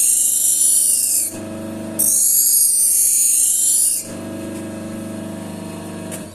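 Knife blade honed against a spinning paper wheel charged with Autosol polish: a loud high hiss of steel on the wheel that ends about a second in and comes again for about two seconds in the middle, over the wheel motor's steady hum. The hum stops near the end.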